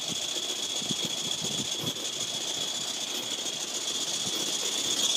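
Coal-fired live-steam garden locomotive in steam, giving a steady high hiss, with a few faint knocks as lumps of coal are handled in the coal box.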